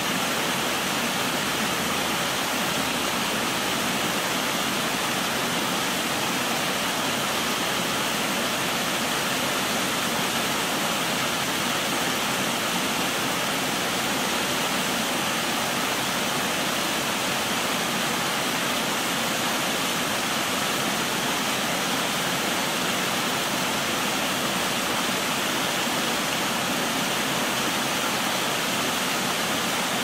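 Waterfall cascading over stepped rock ledges: a steady, even rush of falling and splashing water.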